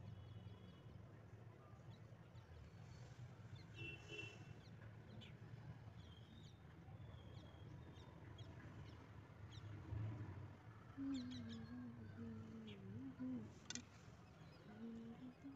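Quiet background with a low steady hum and faint bird chirps now and then; from about eleven seconds in, a faint wavering call rises and falls for a couple of seconds.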